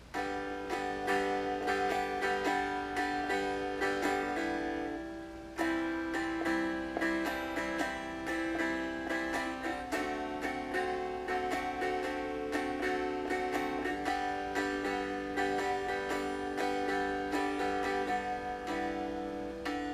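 Four-string cigar box guitar played unamplified, strung with the four highest strings of a six-string guitar set and tuned like a standard guitar. Chords are strummed and left to ring, changing every few seconds.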